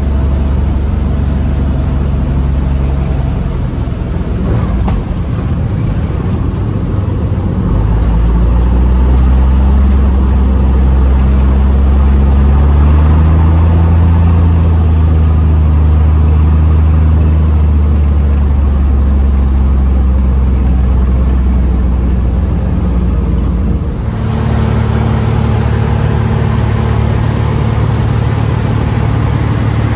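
Maule M-6 light aircraft's piston engine and propeller running loud and steady, heard from inside the cockpit. It picks up and gets louder about eight seconds in during the takeoff roll, and changes abruptly near the end to the steady drone of the engine in flight.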